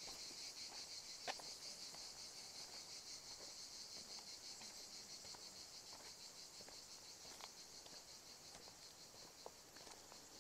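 Faint, steady high-pitched chorus of insects chirring in the woods, slowly fading. A few soft clicks break in now and then, the sharpest about a second in.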